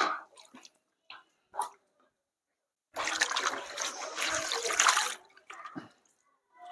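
A few short knocks and splashes, then, about three seconds in, a rush of water splashing for about two seconds as the wash water is poured out of a basin.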